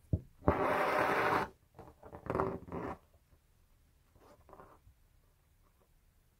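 Needle and thread being drawn through fabric stretched taut in an embroidery hoop: a small click as the needle goes through, then a zipping rasp of the thread for about a second. Shorter rasps follow around two and a half seconds in, and a fainter one a couple of seconds later.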